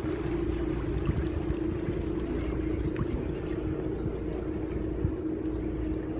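Tour boat's engine running with a steady hum over a low rumble.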